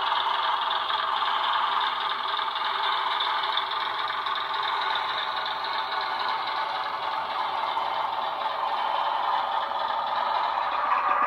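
Model railway diesel railcar's DCC sound decoder playing a Legomanbiffo diesel engine sound through its small onboard speaker: a steady, thin engine note with little bass as the model runs along the track.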